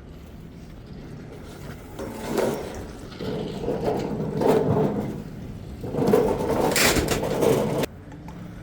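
Scraping and rubbing noise in irregular stretches, loudest over the last few seconds, stopping abruptly near the end.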